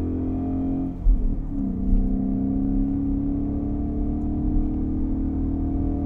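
Ford Mustang GT 5.0 V8 running through a Borla S-Type exhaust while driving. About a second and a half in, the note steps down in pitch with a couple of thumps, then holds a steady, even tone.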